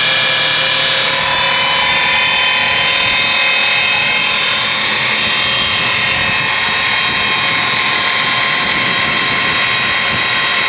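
Angle-grinder motor of a homemade electric outboard running flat out, wired direct without its speed control and with the switch locked on, driving the propeller: a loud, steady whine made of several held high tones over a rushing noise.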